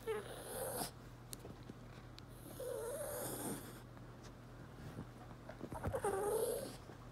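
Small dog making short, breathy, whiny nasal noises three times, each about a second long, with a pizza crust held in its mouth while it hunts for a place to stash it.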